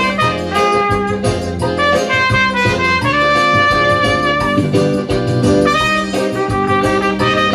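Trumpet playing a sustained, stepping melody over an accompaniment track with bass and a steady beat.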